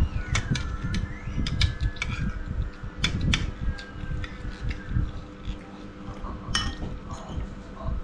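A person eating: chewing and mouth smacks with scattered light clicks of a spoon and fork against a plate, over a steady fan-like hum.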